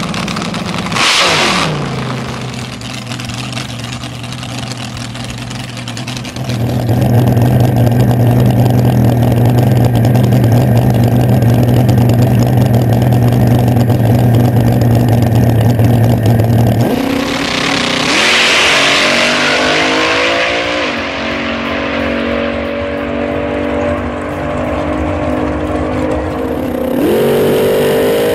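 Vintage front-engine fuel dragster's engine: a quick rev about a second in, then running loud and steady for about ten seconds. After that comes a rush of wind noise and the engine pitch climbs, drops back and climbs again as the car accelerates down the track.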